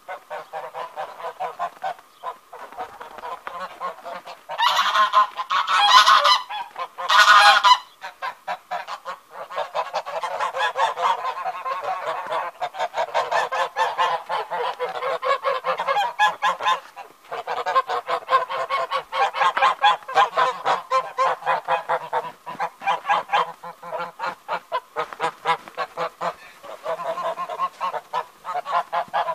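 A flock of white domestic geese honking and cackling without pause, many calls overlapping, with three much louder calls about five to seven seconds in.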